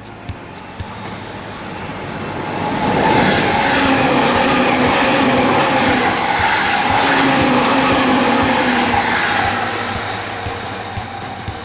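JR E257 series electric limited-express train passing close by: the rush of wheels on rail, with a wavering motor hum, swells over about three seconds, holds loud, then fades near the end. Background music with a steady beat is faintly heard at the start and end.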